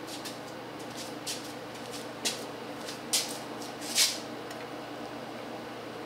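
A steel straightedge clicking and scraping against the FE Ford intake manifold as it is set across it to check for warp: a few short clicks, the loudest and longest scrape about four seconds in, over a steady background hum.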